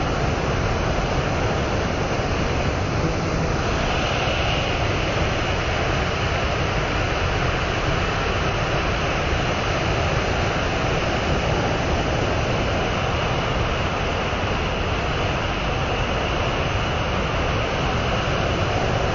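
Steady, unbroken roar of a fast mountain river's white-water rapids.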